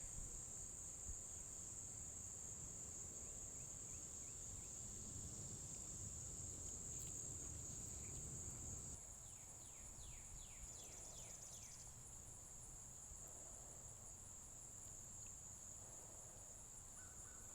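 Faint, steady high-pitched trill of crickets, with a few quick runs of short falling chirps; the chorus shifts slightly about halfway through.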